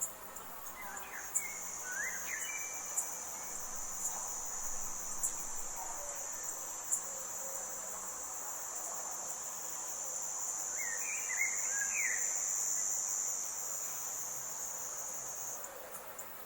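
Forest ambience dominated by a continuous high-pitched insect trill, like a cricket, which starts about a second in and cuts off near the end. Two short bursts of bird chirps come through, one early and one about two-thirds of the way through, along with a few faint ticks.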